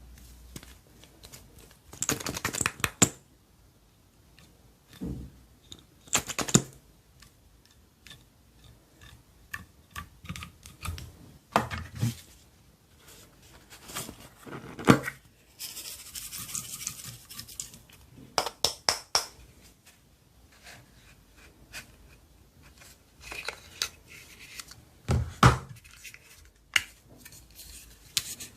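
Slime being squished and mixed by hand: sticky pops and crackles in short bursts, separated by quieter gaps, with a brief hiss about two-thirds of the way through.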